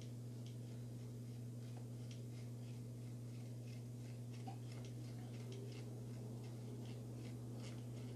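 Hand screwdriver turning a screw into a plastic RC crawler chassis: faint, irregular small ticks and clicks, roughly a couple a second, over a steady low hum.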